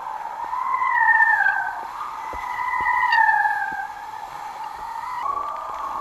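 A steady whistling tone from wind on the kite rig, wavering slowly up and down in pitch and swelling louder twice, over the wash of water and a few short knocks as the board slaps the waves.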